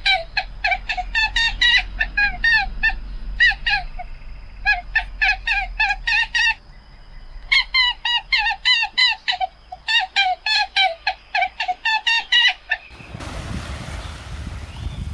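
A bird giving fast runs of short, repeated calls, about four or five a second, in two bouts with a short pause between them. About two seconds before the end the calls stop abruptly and a steady rushing noise takes over.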